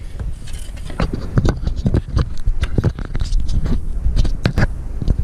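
Irregular clicks, knocks and scrapes of handling close to the microphone, several a second, over a low rumble.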